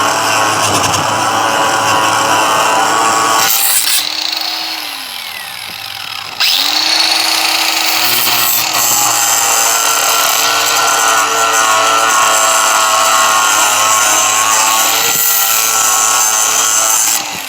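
Cordless angle grinder with a metal cutting wheel running and cutting through metal. About three and a half seconds in the cut stops and the motor winds down with a falling whine; about six and a half seconds in it starts again and cuts steadily until it stops just before the end.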